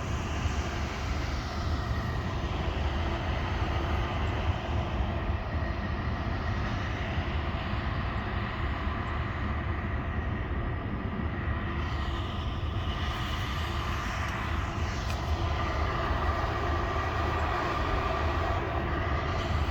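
Sandstorm wind buffeting the phone's microphone on a rooftop: a steady, deep rumble with a rushing hiss over it.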